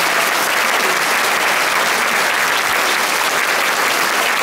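Audience applauding: dense, steady clapping from a large crowd as a majorette routine ends.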